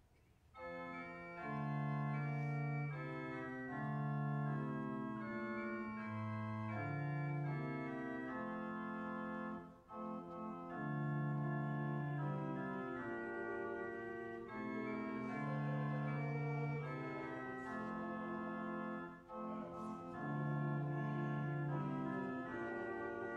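Church organ playing slow, held chords in phrases, beginning about half a second in, with short breaks between phrases.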